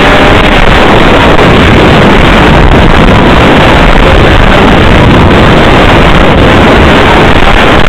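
Snowmobile running at speed across snow, its engine drone mixed with heavy wind buffeting on the microphone. Loud and steady, with no let-up.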